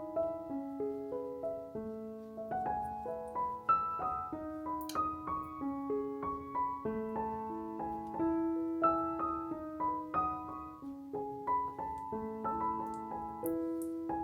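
Background music: a gentle solo piano melody with notes struck about twice a second.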